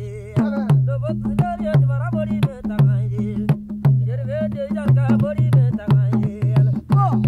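Traditional music of Bideyat (Tubu) blacksmiths in an old field recording. A wavering, ornamented melody runs over a low two-note pulsing pattern, with several sharp percussive strikes each second.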